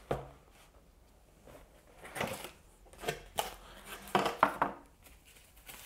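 Cardboard packaging being handled as a card cover is lifted out of a tablet box: a few short scrapes and taps of card on card, one right at the start and a cluster in the second half.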